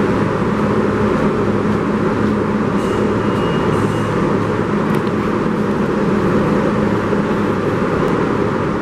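New York City subway train running: a steady, loud rumble of wheels on track with a low motor hum.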